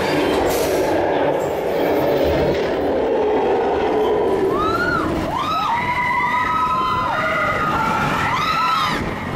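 Roller coaster train rumbling loudly along its track in a dark tunnel. From about halfway through, several riders scream together in long cries that rise and fall in pitch.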